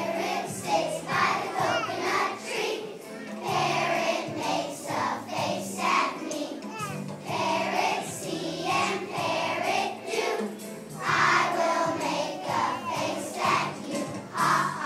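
A choir of young children singing a song together, over a musical accompaniment with steady low notes.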